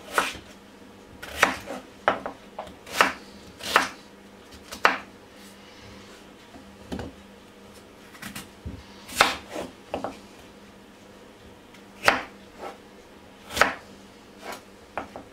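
Kitchen knife chopping potatoes on a chopping board: irregular single knocks of the blade hitting the board, with a pause of a few seconds in the middle.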